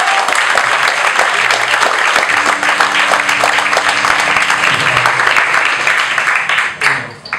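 Audience applauding a band member's introduction, with a low electric bass note held for about two seconds in the middle; the applause stops fairly suddenly near the end.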